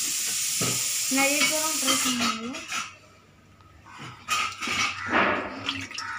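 Water in a glass fish tank being rinsed: a steady hiss for the first few seconds, then, after a short lull, several separate splashes and sloshes of water across the tank floor.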